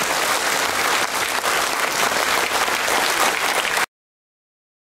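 Audience applauding, dense clapping that cuts off suddenly about four seconds in.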